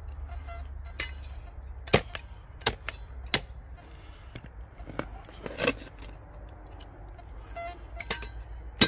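Metal spade digging into stony soil: a series of separate sharp clinks and scrapes as the blade strikes stones, about seven in all. The loudest come about two seconds in and near the end.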